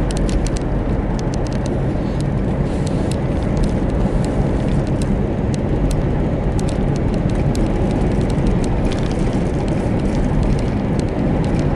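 Steady road and engine noise inside a moving car's cabin: a low rumble with a faint hum and scattered faint ticks.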